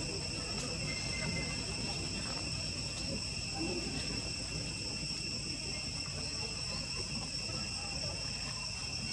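Steady chorus of insects: a continuous high-pitched ringing drone at several pitches at once, over a low rumble.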